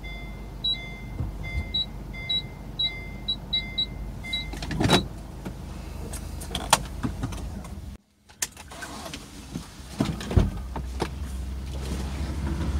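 Inside a car cabin, an electronic warning chime beeps about twice a second for the first four seconds or so over a low steady hum. Then come scattered sharp clicks and handling noises as the driver moves about in his seat.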